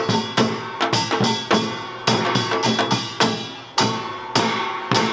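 Yeongnam samul nori played seated: janggu hourglass drums and buk barrel drums beating a fast, driving rhythm with strong accents about every half second, under the clanging and ringing of kkwaenggwari and jing gongs.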